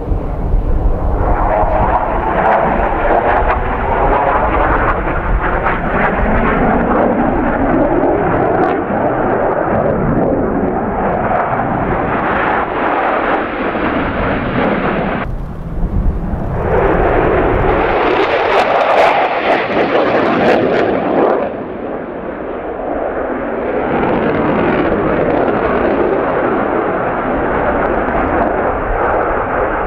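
Loud jet engine noise of USAF Thunderbirds F-16 Fighting Falcons flying display passes, a rushing sound whose pitch sweeps down as a jet goes by in the first few seconds. The sound breaks off abruptly about halfway through and drops in level about two-thirds of the way in, where the footage cuts between passes.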